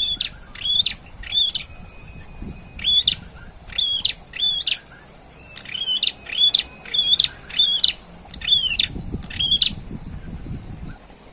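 A red-headed prenjak (prenjak kepala merah) singing loudly: a run of about fourteen sharp whistled notes, mostly in twos and threes, with a brief pause about four seconds in. This is a young bird practising its song.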